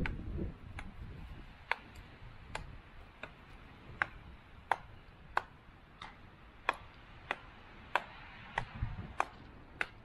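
Campfire crackling: sharp, irregular pops of burning wood, about one or two a second.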